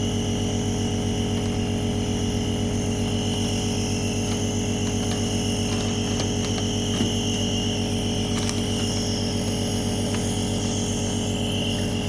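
A small electric motor humming steadily, an even mechanical drone with a higher hiss above it, and a few faint ticks.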